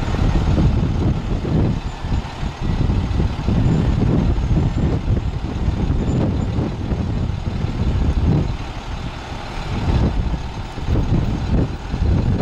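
Diesel service truck's International DT466 engine running as its Liftmoore crane boom telescopes out, with an uneven low rumble that rises and falls.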